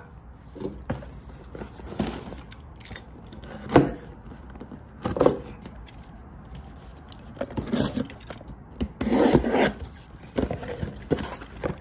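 A corrugated cardboard shipping case being handled and opened by hand: cardboard rubbing and scraping in scattered bursts, with a sharper knock about four seconds in.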